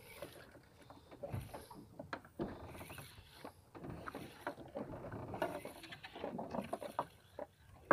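A Shimano Twin Power 4000 PG spinning reel being cranked to bring in a hooked fish, its handle and gears whirring and clicking. Water splashes against the boat's hull about every second and a half.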